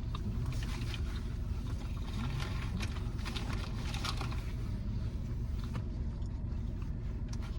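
Steady low hum of a car's engine or ventilation heard from inside the cabin, with scattered short crinkles and clicks of food wrappers being handled.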